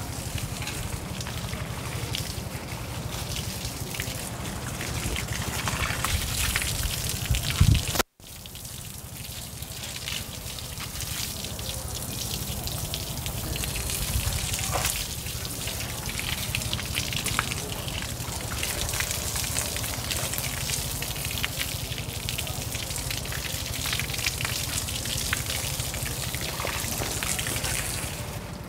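Water spraying from a garden hose and splashing onto plants and the ground, a steady hiss. It cuts out for an instant about eight seconds in.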